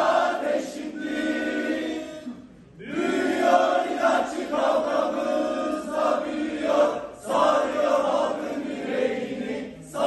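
A group of men and women singing a song together in unison, in phrases of a few seconds with short breaks between them.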